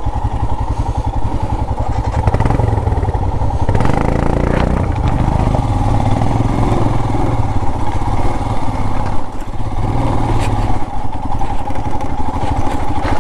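Royal Enfield Himalayan 411's single-cylinder engine running under load as the motorcycle rides over a rough, bouldery track. A few sharp knocks stand out from the steady engine pulse.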